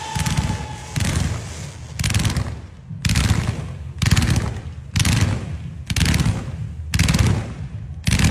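Firecrackers going off in rapid crackling bursts, one volley about every second, each a dense string of sharp pops.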